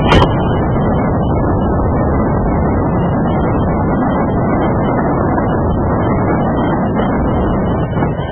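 Steady rumble of a BNSF intermodal freight train climbing grade, its diesel locomotives working as the train passes. There is a brief click just after the start.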